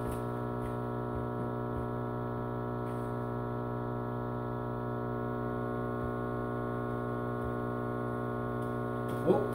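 PowerJack split-phase power inverter humming steadily under a heavy load of about 20 amps at 240 volts: an even mains hum with many overtones.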